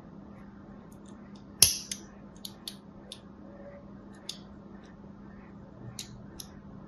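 A thin blade scoring a bar of soap: a dozen or so short, crisp scratching strokes, with one loud sharp click about one and a half seconds in.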